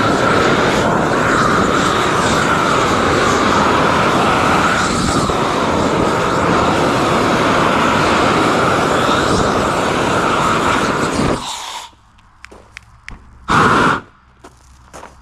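Propane weed-burner torch burning at full flame, a loud steady rush that cuts off about eleven seconds in. A couple of seconds later the torch gives one short blast of about a second, with faint clicks in the quiet around it.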